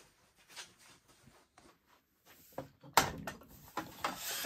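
Aluminium Festool rail square being handled and taken off its aluminium guide rail: a few faint clicks, then from about three seconds in a run of louder metal knocks and scrapes.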